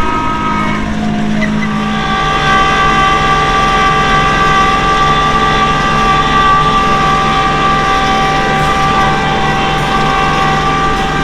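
Truck driving at a steady speed, its engine hum under a steady high whine from the drivetrain and road. A different whine fades out in the first second, and the steady one holds from about two seconds in.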